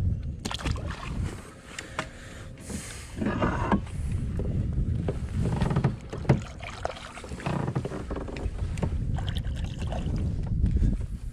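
Knocks, clicks and water sounds of a fishing kayak being worked on the water, over a steady low rumble.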